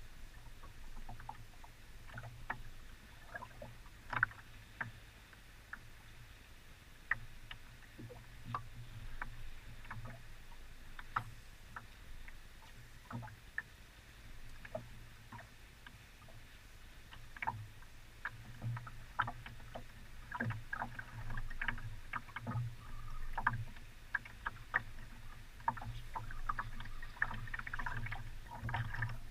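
Small waves lapping and slapping against the hull of an aluminium boat drifting with its outboard motor stopped: frequent, irregular small splashes and knocks over a low rumble.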